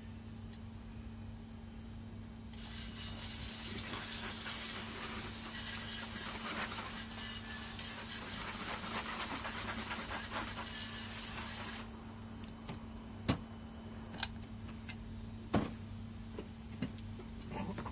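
Water spray from a hand-held hose nozzle hissing against a metal engine casing as oven-cleaner degreaser is rinsed off. It starts a couple of seconds in, runs for about nine seconds and cuts off suddenly, followed by a few sharp knocks as the casing is handled.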